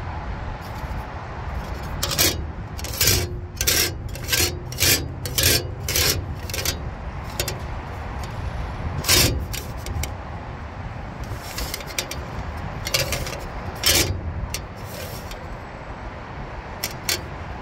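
Metal evaporator fan blade being handled, adjusted and set against a metal truck toolbox lid: a quick run of sharp scrapes and clicks, about two a second, from a couple of seconds in, then a few scattered ones later, over a steady low rumble.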